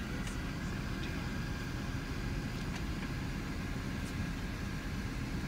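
Steady low rumble of an airliner's cabin while it waits before taxi, with a few faint clicks.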